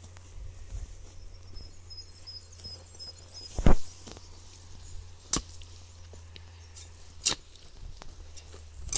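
A hand hoe chopping into garden soil, with one dull thud about three and a half seconds in and two sharper clicks after it, as earth is drawn over planted seed potatoes.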